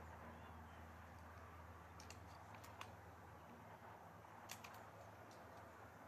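Near silence: a steady low hum, with a few faint sharp clicks about two seconds in and again about halfway through.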